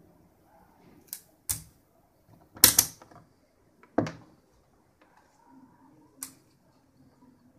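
Handling noises: a handful of sharp clicks and knocks, the loudest a short rattle of clacks about two and a half seconds in.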